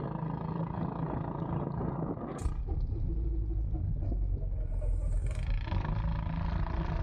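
Go-kart engine running steadily, with a heavy low rumble setting in about two and a half seconds in after a brief sharp noise.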